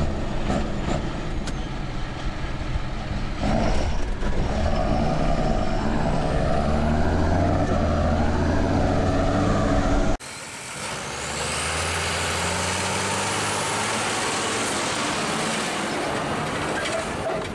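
John Deere tractor's diesel engine running steadily, picked up close to its exhaust stack. About ten seconds in it cuts abruptly to another stretch of tractor engine noise, with a faint rising whistle over it.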